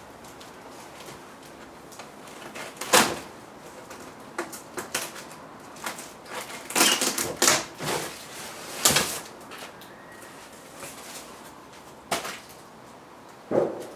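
Irregular knocks, clatters and rustling scrapes of parts being handled and unpacked from a cardboard box, with a sharp knock about three seconds in and a cluster of them in the middle.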